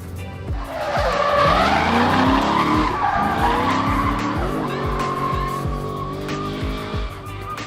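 Drift car sliding, its tyres squealing from about a second in while the engine revs rise and fall. Background music with a steady beat plays underneath.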